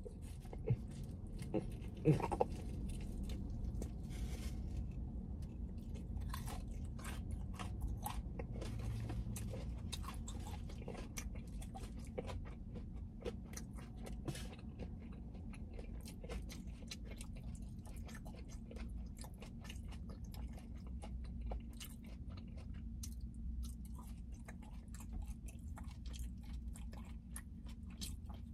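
Close-up chewing of a crispy fried chicken tender sandwich: a crunching first bite, then long wet chewing with many small clicks and smacks. The meat is tough and gristly, with a piece he later calls cartilage that kept 'chewing back'. A low steady hum runs underneath.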